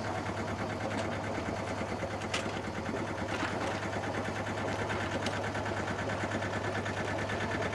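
A sailboat's engine running steadily under way, a constant low drone with a fast, even chatter.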